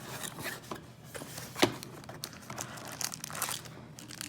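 Packaging crinkling and rustling as a small box of mounting hardware is opened and handled, with irregular clicks and one sharp click about one and a half seconds in.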